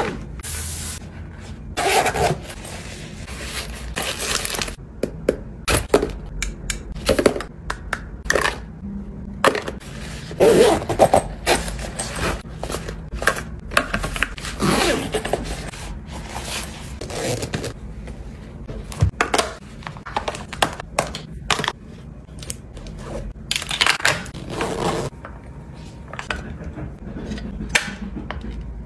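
Handling noises from packing small items into fabric travel pouches: irregular scraping and rustling of fabric and plastic, with light clicks and knocks.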